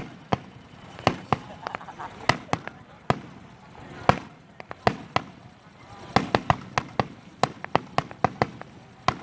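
Fireworks bursting overhead: an irregular string of sharp bangs, coming thicker and faster in the last three seconds.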